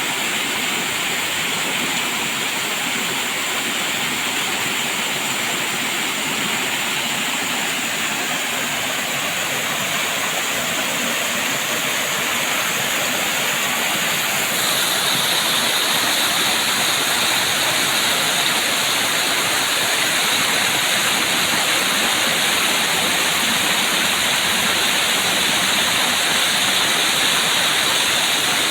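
Waterfall: a steady rush of falling water, which turns abruptly a little brighter and louder about halfway through.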